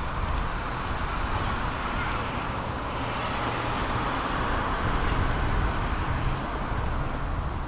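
Steady rolling rumble and hiss of a vehicle in motion.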